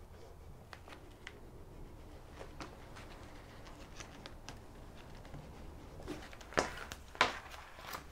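Stiff coated fabric rustling and scraping as a small hand-held sealing iron is slid along a seam and the material is shifted by hand. Light scattered clicks and rustles, with two louder rustles near the end.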